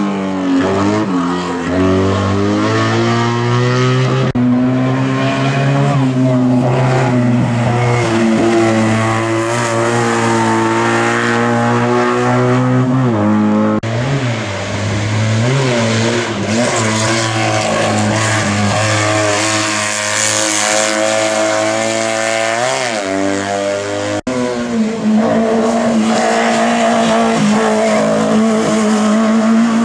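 Race car engine revving hard through a slalom course, the revs dropping and climbing again several times as it brakes and accelerates between the chicanes, with a brief break about 24 seconds in.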